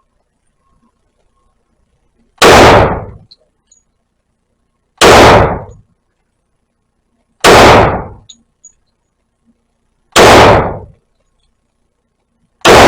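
Hi-Point JXP 10mm pistol fired five times in slow, aimed fire, about two and a half seconds between shots, each shot echoing briefly on the indoor range. The last shot comes at the very end. The pistol fires and cycles every round.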